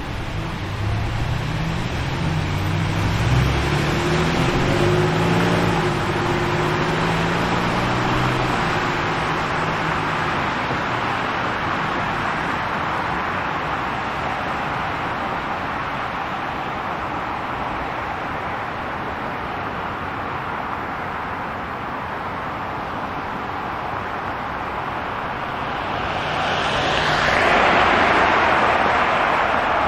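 City street traffic: a steady hiss of road noise. In the first several seconds a vehicle's engine note rises and falls in pitch. Near the end a vehicle passes close by, louder, with its sound sweeping as it goes past.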